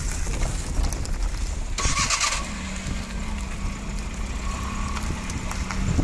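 Taxi's engine and road noise heard from inside the moving car. A short hiss comes about two seconds in, then a steady low engine hum holds to the end.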